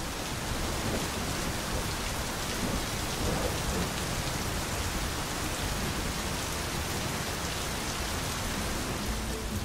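Steady rain falling, an even hiss of water on surfaces without breaks.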